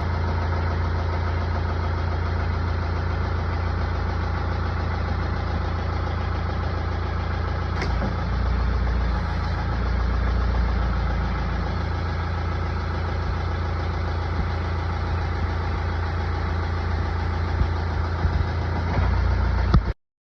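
Diesel engine of a Branson compact tractor carrying a backhoe, running steadily at an even speed, with a few brief knocks near the end.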